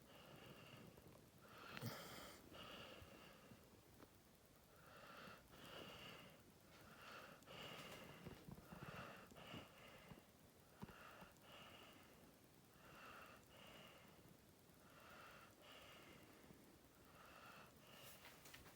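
Staffordshire bull terrier snoring faintly in its sleep: a wheezy, snuffling breath about every two seconds, each drawn in two short parts.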